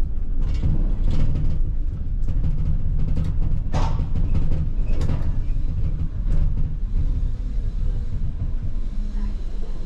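A coupled pair of ČKD Tatra T6A5 trams running along the track, heard from the driver's cab: a steady low rumble with several sharp clacks from the rails and a brief wavering squeal about four seconds in.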